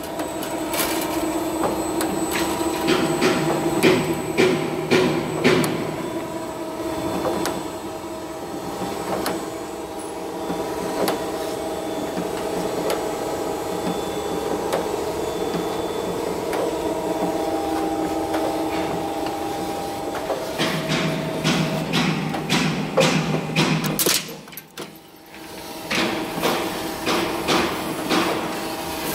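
Servo-driven rolling shutter strip roll-forming machine running with a steady mechanical hum. Repeated metallic clicks and clanks come as the steel strip passes through the forming rollers. The clanking is thick at first, eases off through the middle, and picks up again in the last stretch.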